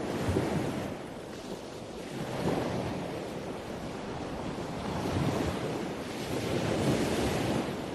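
Ocean surf ambience: waves washing in and out, a steady rushing noise that swells and eases every couple of seconds.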